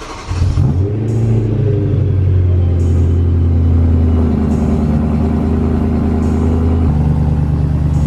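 BMW E92 M3's S65 V8, exhaust running through a muffler delete, firing up on a cold start: it catches about a third of a second in, its pitch swings briefly, then it settles to a loud, steady fast idle. The tone steps up about seven seconds in.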